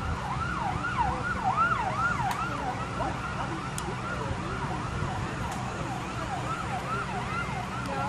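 Emergency vehicle siren on the fast yelp setting, its pitch sweeping up and down about twice a second, over a steady low hum.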